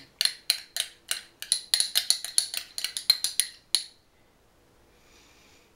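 Metal spoon clinking and scraping against a small bowl and a glass jar while spooning out mayonnaise: quick, ringing clinks about five a second that stop about four seconds in.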